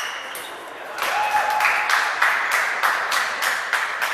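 Table tennis balls clicking off paddles and tables at several tables at once: a quick, irregular patter of sharp clicks over the noise of a large sports hall, growing busier after about a second. A brief steady squeak comes about a second in.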